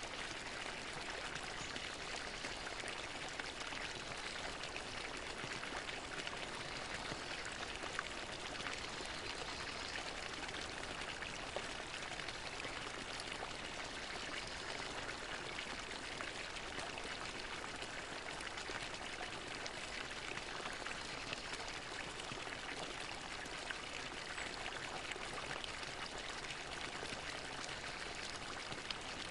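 Fountain water splashing and pouring steadily into its basin.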